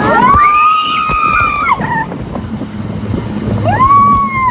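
Riders screaming on a water-park raft coaster: two long screams, each swooping up, held and falling away, the first at the start and the second near the end, over rushing water and wind buffeting the microphone.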